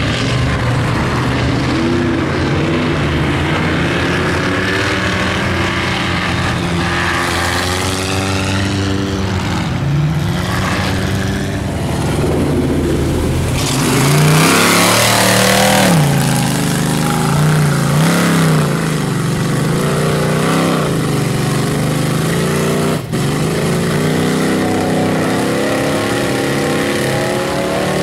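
Engine of a lifted mud bog truck on large tractor tires revving hard as it churns through a mud pit, its pitch rising and falling in repeated surges with the throttle. It is loudest about halfway through as the truck passes close, and there is a single sharp click shortly before the end.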